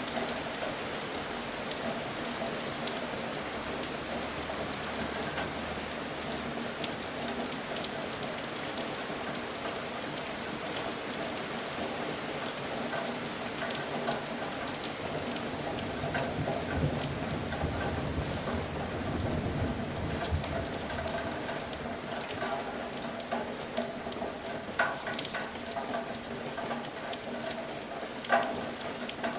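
Steady rain falling, a constant hiss with scattered sharper drips and a couple of louder drops near the end.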